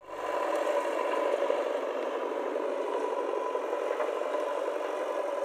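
Diesel engine of heavy earthmoving machinery running steadily, with a constant whine over it.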